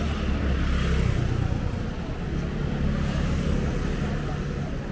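A motor vehicle's engine running, a steady low rumble over street background noise.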